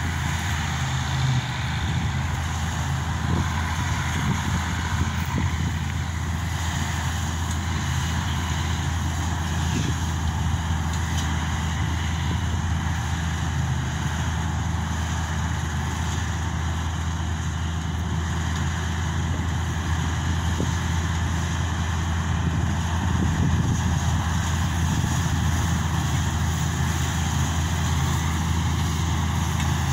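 Combine harvester running steadily: a heavy diesel engine's continuous low drone, rising slightly a little over two-thirds of the way in.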